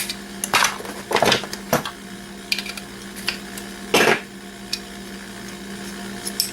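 Hand work prying a circuit board off an old alarm control panel: a series of sharp clicks, snaps and scrapes of hard parts, the loudest about four seconds in. A steady low hum runs underneath.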